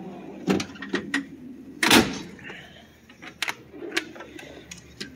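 Steel tool box drawers being worked: a series of clicks and metal rattles, with one loud clunk about two seconds in as a loaded drawer of hammers and wrenches is shut, then lighter clicks as the next drawer slides open.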